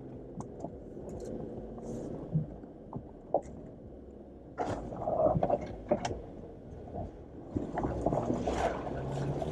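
Jeep Wrangler JL heard from inside the cabin, engine running low as it crawls over a rough offroad trail, with scattered knocks and rattles from the body and suspension over bumps.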